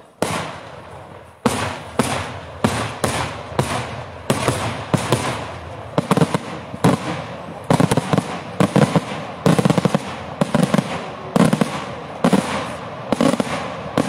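Daytime fireworks display: aerial shells bursting overhead in a rapid series of loud bangs, about two a second, each with a short fading tail.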